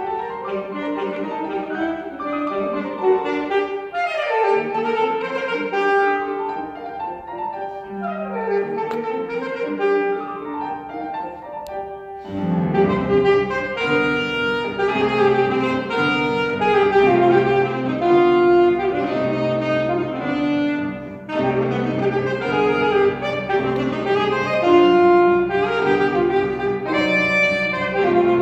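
Alto saxophone playing a melody with grand piano accompaniment. About twelve seconds in, the music grows fuller and louder, with low piano notes under the saxophone.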